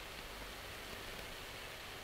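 Faint steady hiss of room tone, with no distinct sound standing out.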